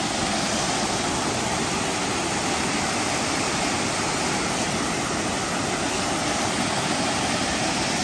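Small waterfall pouring over stepped rock ledges into a shallow rocky stream: a steady, even rush of falling water.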